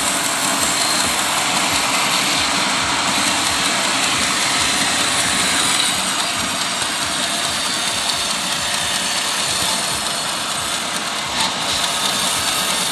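Engine of a mobile circular sawmill running steadily.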